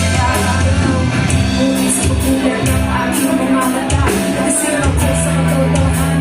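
Live rock band playing with a steady drum beat and cymbal strikes over bass and guitar chords, between sung lines of a pop-rock song.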